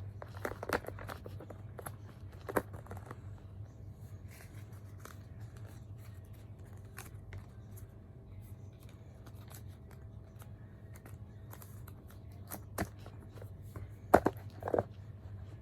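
Small clicks, taps and rustles from handling a phone and its packaging, scattered through the first few seconds and again near the end, over a steady low hum.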